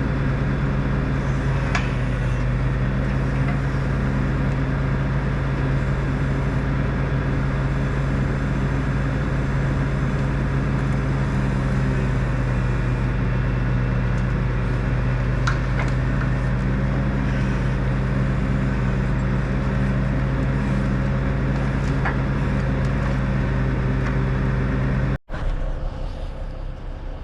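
Heavy log truck's diesel engine running steadily at an even speed, a deep constant hum with a few faint ticks. It cuts off abruptly near the end.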